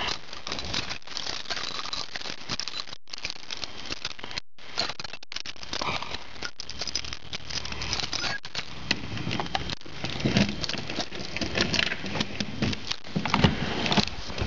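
Keys jangling and clicking at a door's deadbolt and knob lock, with clothing rustle and handling noise; near the end the brass doorknob is turned and the door opened.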